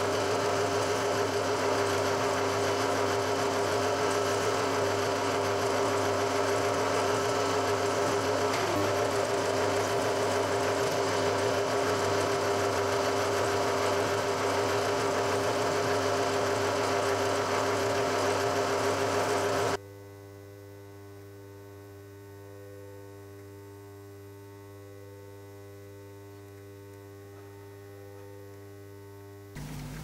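Milling machine spindle running steadily while drilling holes into a white plastic part. About twenty seconds in, the sound drops abruptly to a much quieter steady hum.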